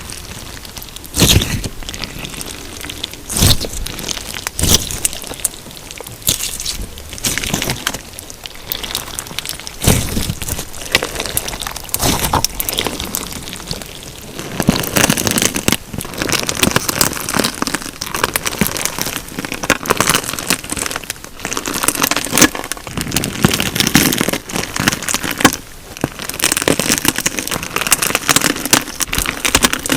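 Crunchy slime with sequins and glitter being worked by hand, giving a dense crackling and crunching, with loud sharp cracks every second or two at first and busier, steadier crackling in the second half.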